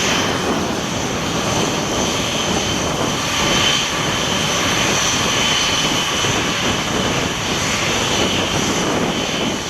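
Airbus A350-900 with its two Rolls-Royce Trent XWB turbofans running, a steady loud jet noise with a thin high whine over it.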